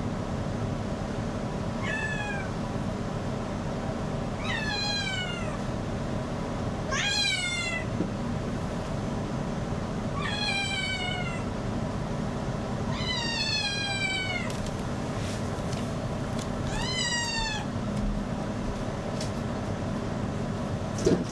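A cat meows six times at intervals of a few seconds, each call falling in pitch, over the steady rush of a hair dryer running throughout. A short knock comes near the end.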